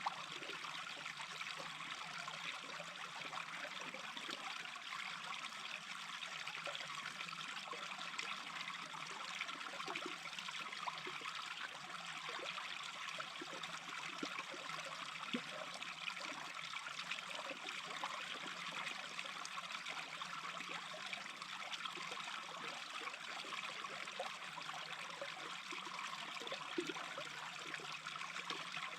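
Small brook babbling and trickling steadily over stones, with an occasional slightly louder splash.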